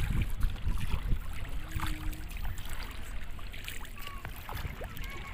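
Wind rumbling on the microphone over water splashing and lapping against a small boat moving on the sea.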